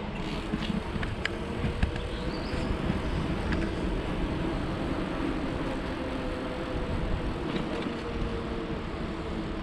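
Steady rumble of riding an e-bike, wind on the microphone and tyres on the path, with a faint engine hum that drifts slowly in pitch. A few light clicks come in the first two seconds.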